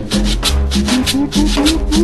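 Latin dance music playing loud, with a quick steady shaker beat over a stepping bass line and melody.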